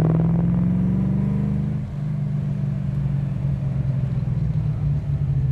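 Interior sound of an HDT VH Commodore's Holden V8 on a parade lap: the revs climb slightly, drop back with a brief dip in level about two seconds in, then the engine runs steady at lower revs.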